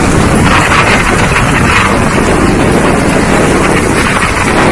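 Heavy rain pouring down on a street and roofs, a loud, steady hiss, with wind buffeting the microphone.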